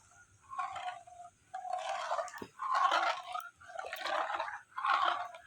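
Milk being stirred in a kadai with a spatula: repeated scraping and sloshing strokes, about one a second.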